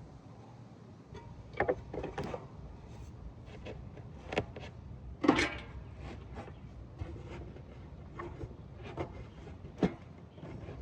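Irregular knocks, clunks and short scrapes of desk parts being handled and fitted during assembly, the loudest clunk about five seconds in.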